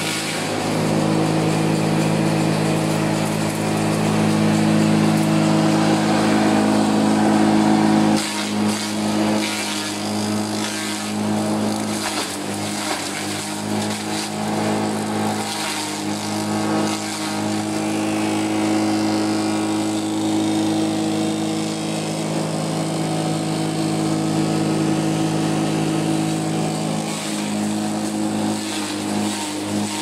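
Electric chaff cutter and grain crusher running under load, its motor humming steadily while the cutter blades chop green stalks fed into the inlet. The hum shifts about eight seconds in, and uneven crackling from the chopping runs through it after that.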